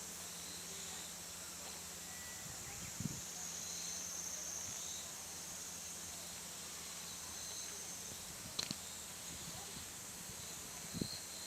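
Steady outdoor insect chirring, a high hiss with thin shrill tones coming and going, with a few soft knocks.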